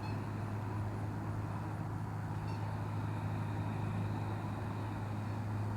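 Steady outdoor ambience: a constant low hum under an even rushing noise, with no sudden events.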